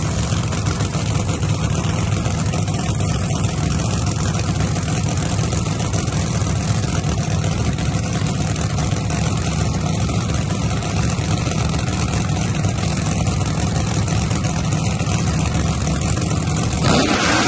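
Pro Boost drag car engines running steadily at the starting line, a loud, even drone weighted low. Right at the end the sound changes suddenly, with a brief louder surge.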